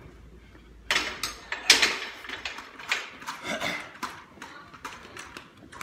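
A person breathing hard after heavy barbell lifting: loud, hissing gasps and exhales that start suddenly about a second in, followed by a few more heavy breaths.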